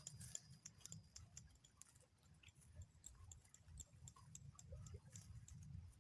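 Near silence: a faint low rumble with scattered faint ticks.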